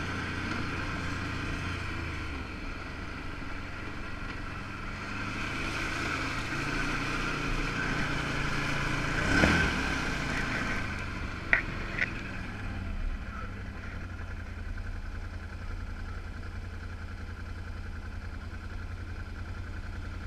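2013 Can-Am 1000 XT ATV's V-twin engine running under way on a trail, its pitch shifting with the throttle. About halfway through there is a brief louder rush as it crosses wet mud, followed by two sharp clicks.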